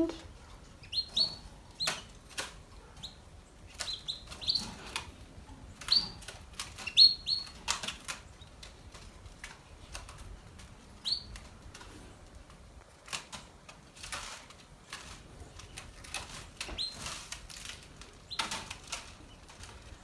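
Canaries moving about their wire cages: short wing flutters and light knocks, with brief high chirps at intervals, most of them in the first half.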